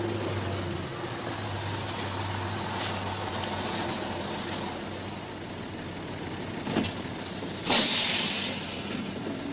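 City bus engine running as it pulls up to the stop, then a knock and a loud, sudden hiss of compressed air near the end as the pneumatic doors open.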